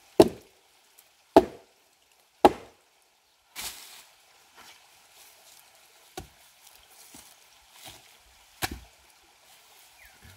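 Heavy blows struck on wood: three loud strikes about a second apart, then a few fainter ones a few seconds apart. The chainsaw is not running.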